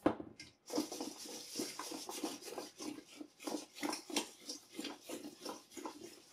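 Oiled, seasoned vegetable chunks being tossed in a stainless steel mixing bowl: a sharp knock at the start, then a steady rhythm of the pieces tumbling and sliding against the steel, about three tosses a second.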